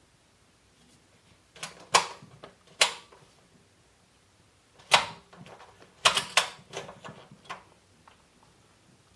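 A run of sharp clicks and knocks, about eight in all, in two clusters a few seconds apart, from the plastic-and-metal box fan being handled.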